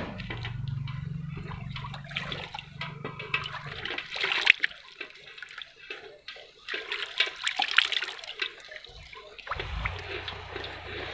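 Hand-milking a water buffalo: squirts of milk from the teats hiss into a steel bucket already full of frothy milk, coming in quick runs of strokes with a short pause about halfway.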